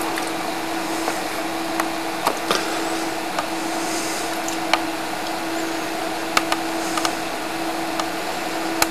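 Steady hiss with a constant low hum running under it, broken by a few short faint clicks.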